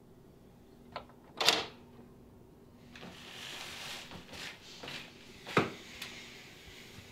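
A door being unlocked and handled: a small click, then a loud sharp clack of the lock or latch, a few seconds of soft rustling movement, and another loud sharp clack.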